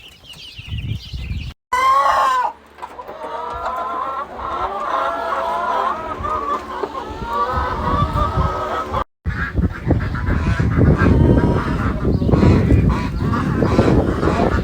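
Chickens clucking and calling, a flock of overlapping calls, with one louder rising-and-falling call about two seconds in. The sound cuts out briefly twice, and after the second break it turns rougher and noisier.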